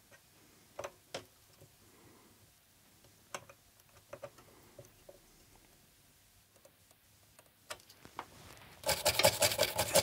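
A few faint clicks and taps from work at the circuit board. Then, near the end, a stiff brush starts scrubbing quickly against the board, scraping away flux residue.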